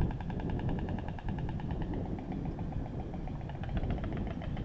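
White storks clattering their bills: a fast, dry rattle of about ten strokes a second that weakens midway and picks up again near the end, over a steady low rumble.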